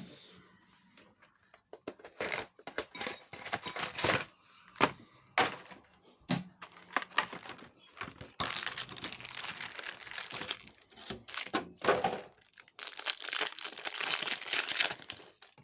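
Foil trading-card booster pack wrapper crinkling and being torn open, in irregular crackles, with two longer spells of crinkling about halfway through and near the end.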